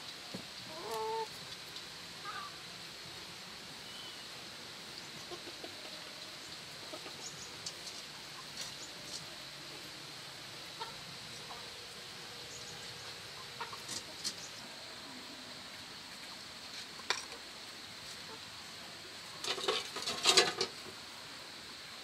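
Chickens clucking now and then, over a faint steady high hiss. Near the end comes a quick cluster of sharp clicks or knocks, the loudest sound here.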